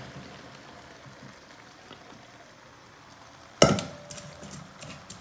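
Aluminium pot of tomato masala and freshly added chopped sponge gourd sizzling faintly. About three and a half seconds in comes one sharp knock, the loudest sound, followed by a few lighter clicks.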